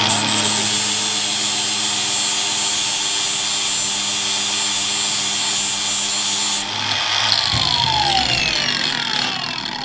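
Electric grinder running while a TIG welding tungsten electrode, spun in a drill, is ground to a point against it, a steady grinding hiss over the motor hum. About seven seconds in the grinding stops and the motor winds down with a falling whine.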